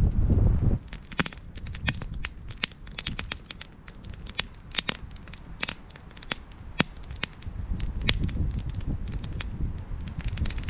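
Freshly lit campfire of split logs and dry brushwood crackling, with many sharp, irregular pops as the twigs catch and the fire is still picking up. Wind rumbles on the microphone for about the first second and again in the last few seconds.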